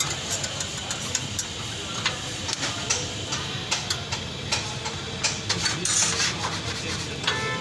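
A metal spatula tapping and scraping on a flat steel griddle in sharp, irregular clicks, over a steady low background rumble. A short horn-like tone sounds near the end.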